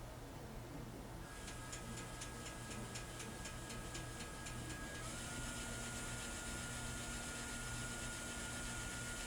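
Motors of an AVIT-DT automated fiber-optic inspection and cleaning machine running during its inspect-and-clean cycle. From about a second in there is a thin whine with about four ticks a second, and about halfway through it changes to a steady, slightly lower whine.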